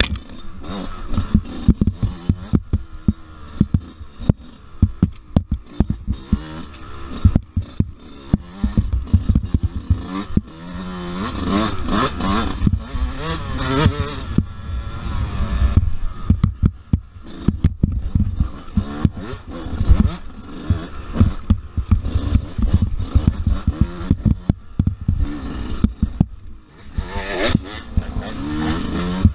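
Dirt bike engine revving up and down as it is ridden hard over a rough woods trail, heard close up from the bike. Frequent sharp knocks and clatter come from the bike jolting over bumps and roots.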